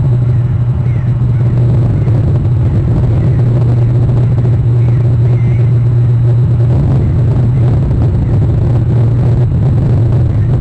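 Steady, loud low hum or rumble, even throughout, with a few faint short chirps above it.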